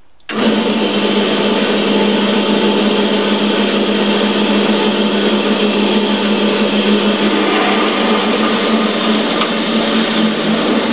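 Carolina horizontal metal-cutting band saw switched on a split second in, then running steadily with a motor hum under a continuous cutting noise as its blade works through square tubing laid flat.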